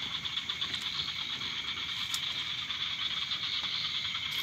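Night chorus of frogs and insects calling outside: a steady, high-pitched trilling.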